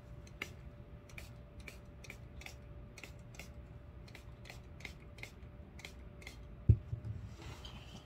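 Light, evenly spaced clicking, about two to three a second, over a faint steady hum. It stops shortly before a single loud knock of something set down on the table near the end.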